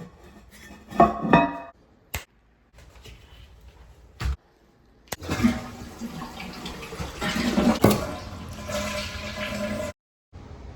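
A toilet flushing: water rushing through the bowl and tank, in short clips with abrupt cuts between them, the longest running about five seconds from halfway through.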